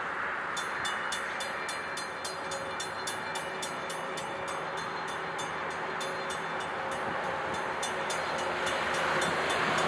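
Railroad grade-crossing warning bell starts about half a second in and rings on in rapid, evenly spaced dings, over the rising rumble of an approaching freight train.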